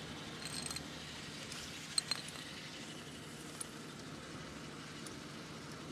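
Car engine idling steadily, running so the automatic transmission fluid level can be checked, with a few short metallic ticks and clicks from a ratchet on the transmission drain plug, including two sharp clicks about two seconds in.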